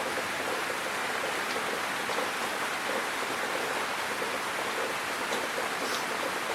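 Steady, even hiss of background noise, with a few faint ticks.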